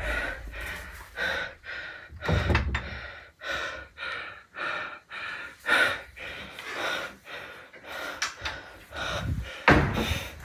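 A person breathing hard in quick, loud gasps, with a heavy thump about two seconds in and another near the end.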